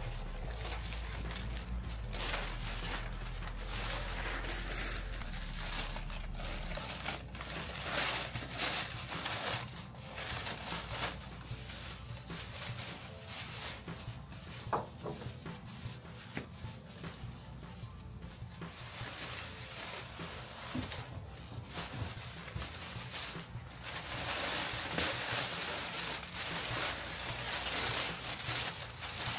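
Plastic masking sheeting being pulled down and balled up, an irregular rustling with many short sharp crackles, growing louder near the end.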